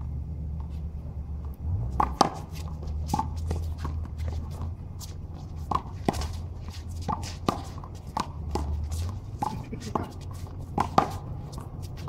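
Handball rally: the small rubber ball is struck by hand and smacks off the concrete wall and floor in sharp, irregular slaps starting about two seconds in, with sneakers shuffling on the court. A steady low hum runs underneath.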